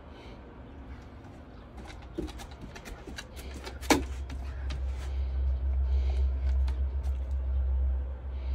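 Great Dane puppies playing rough: a run of scuffling clicks and knocks, with one sharp, short cry that drops in pitch about four seconds in. A low rumble underneath grows louder in the second half.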